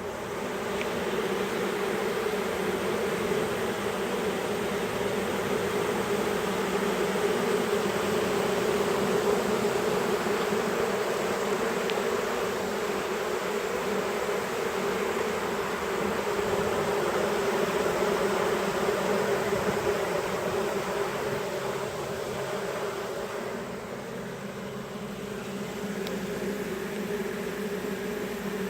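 Honey bee swarm buzzing steadily, dense hum of many wings: workers fanning at the hive super, the sign that the queen is inside and the swarm is moving in.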